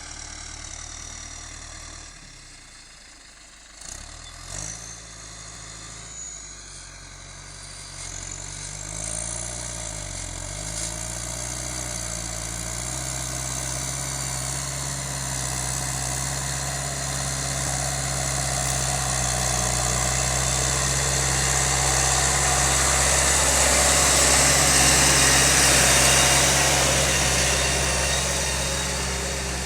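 John Deere 6210 tractor engine running under load, its pitch dipping and recovering about ten seconds in, then growing steadily louder as it comes closer, loudest about 25 seconds in. A couple of short knocks about four seconds in.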